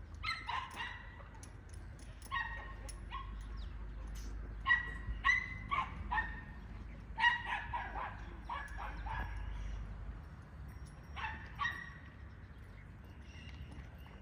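Dog barking repeatedly in short, fairly high-pitched bursts of two or three barks, a new burst every second or two.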